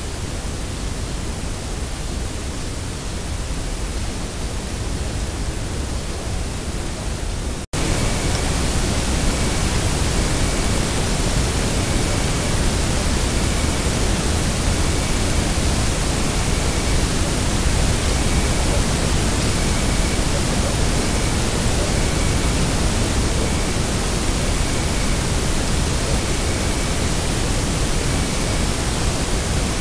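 Steady hiss from a trail camera's microphone, with a brief dropout about eight seconds in where one recording ends and the next begins. The hiss is louder after the dropout, and a faint short high tone repeats about once a second.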